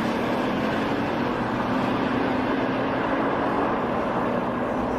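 Two Bugatti supercars accelerating hard side by side in a drag race, their engines giving one steady, loud note that climbs slowly in pitch.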